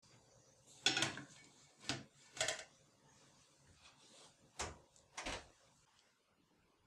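Metal baking tray being set down on a stainless steel cooling rack: a handful of separate knocks and clatters, the loudest about a second in, with two more knocks near the end.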